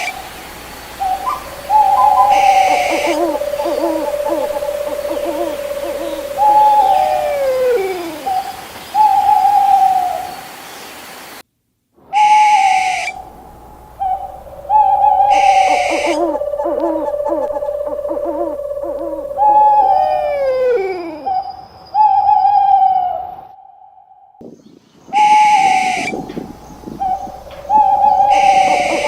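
An owl calling: short hoots, long held notes and falling calls, with short brighter calls between them. The same sequence breaks off briefly and repeats about every 12 seconds.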